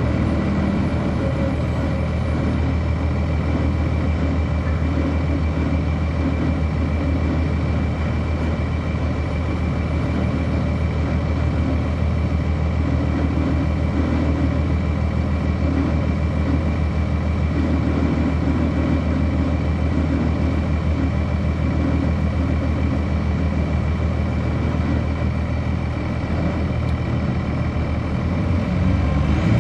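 Cummins ISC six-cylinder diesel engine of a 1999 Nova Bus RTS, heard from on board, running steadily at an unchanging engine speed with a faint steady high whine. Near the end the level rises as the engine begins to pick up.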